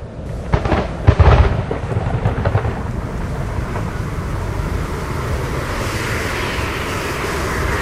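Thunderclap, with a loud crackling crack about a second in, followed by a steady rushing storm noise of rain and wind.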